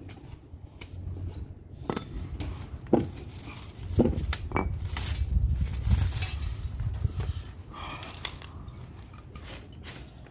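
Metal clinking and knocking as an air-conditioner radiator is worked apart to get at its copper tubing, with a few sharp clinks in the first half.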